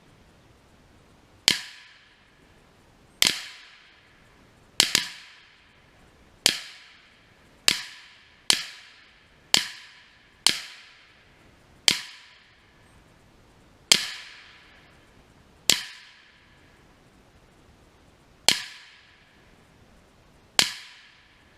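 Rifle gunfire: about fourteen single shots at an uneven pace, each trailing off in an echo. Two come almost on top of each other about five seconds in.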